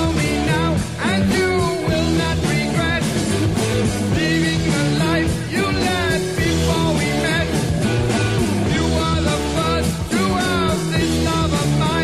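Background rock song: singing over guitar with a steady beat.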